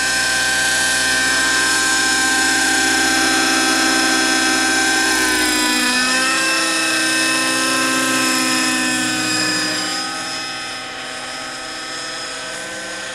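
Align T-Rex 600 Nitro RC helicopter's OS .50 Hyper two-stroke glow engine running at flight speed, a steady high whine with the rotor. The pitch dips and recovers about six seconds in, and the sound grows fainter after about ten seconds as the helicopter climbs away.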